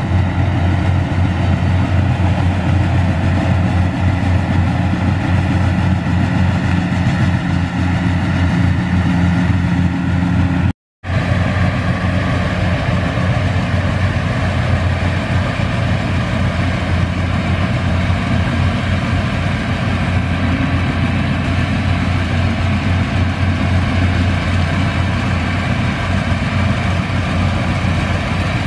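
Yanmar AW70V rice combine harvester's diesel engine running steadily while the machine harvests. The sound cuts out for a split second about eleven seconds in.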